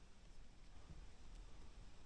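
Near silence: faint room tone with no distinct sound.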